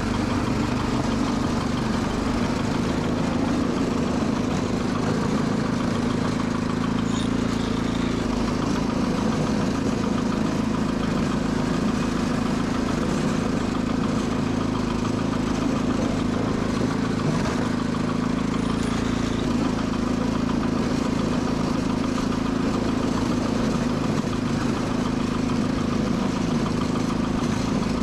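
Sears Suburban 12 garden tractor engine running at a steady speed.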